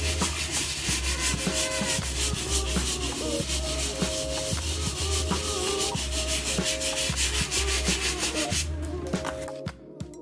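A brush scrubbing a foamy, lathered white sneaker in small circles: rapid, steady scratching strokes that stop near the end. Quiet background music with sustained tones plays underneath.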